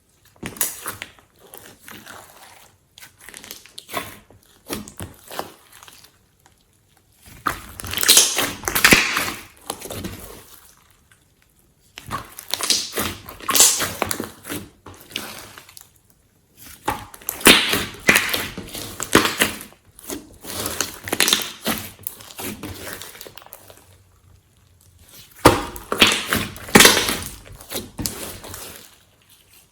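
Glossy slime being squished and kneaded by hand: repeated bursts of many small clicks and pops, each a few seconds long, with short pauses between.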